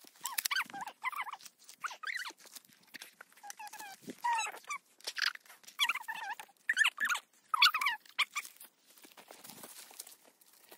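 Footsteps crunching through dry fern fronds and leaf litter, over many short, high, wavering whining calls repeated throughout.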